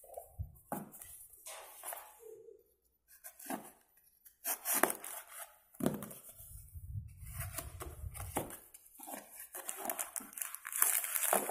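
Brown paper parcels being handled, cut at the tape and torn open, giving irregular rustling, scraping and tearing with a few handling knocks.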